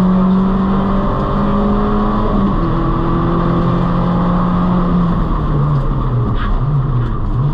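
Peugeot 206 rally car's four-cylinder engine running hard at high revs, heard from inside the stripped cabin. The engine pitch steps down about two and a half seconds in and again about five seconds in, then wavers near the end.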